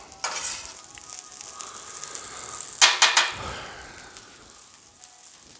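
Fried rice sizzling and crackling on a Blackstone flat-top griddle, the rice grains popping. There are two louder scrapes, one just after the start and a stronger one about three seconds in, as the rice is stirred.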